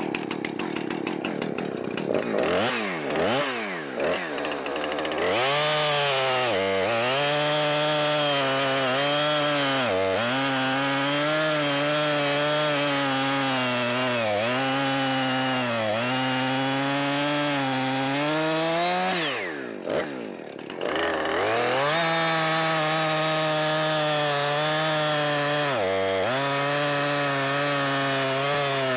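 Two-stroke gas chainsaw running hard while cutting through a log, its engine pitch sagging briefly again and again as the chain bites under load. It revs unevenly in the first few seconds. About two-thirds through it revs up high, drops back to idle for a moment, then throttles up and cuts again.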